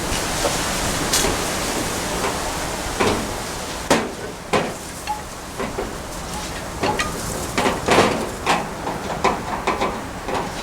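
Irregular light clicks and knocks of a replacement grill door handle and its screws being handled and fitted against the grill door, starting about four seconds in, over a steady hiss.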